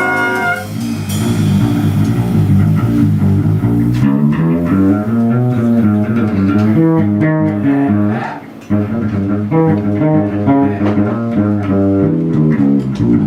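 Jazz big band music: the horns' held chord ends about half a second in, leaving a plucked-string solo line moving note by note in a low register, with a brief break about two-thirds of the way through.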